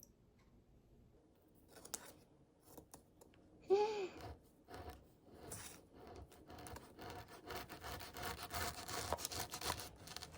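Faint scraping and rubbing with scattered clicks, building in the second half, and a short squeak about four seconds in.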